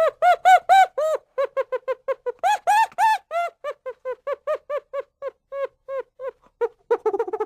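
Chimpanzee giving a rapid series of short hooting calls, about three or four a second, rising in pitch and loudness twice before settling into a steadier run, with calls crowding together near the end.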